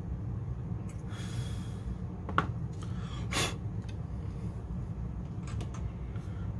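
Quiet workbench sounds over a steady low hum: two short hissing breaths, one about a second in and a sharper one about three seconds in, with a small click between them and a few faint clicks near the end.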